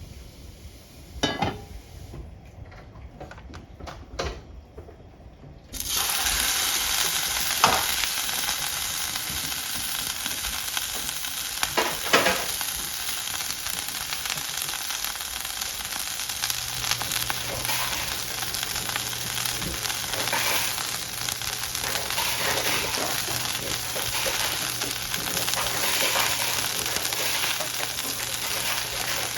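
Flat iron steak searing in a very hot Misen nitrided carbon nonstick pan. After a few quieter seconds with a couple of knocks, a loud sizzle starts suddenly about six seconds in as the steak meets the pan, then carries on steadily. A low steady hum joins about halfway through.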